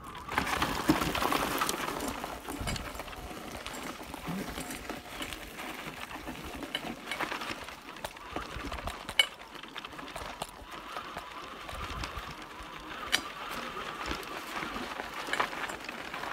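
Electric wheelchair trike riding over a rough gravel-and-dirt track: its solid tyres crunch and the frame rattles, with a faint steady whine. Loudest just after it comes onto the gravel, with a couple of sharp knocks from bumps later on.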